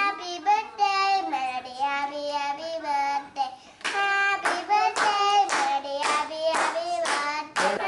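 Young children singing together; from about halfway through, hand claps join in, about two a second.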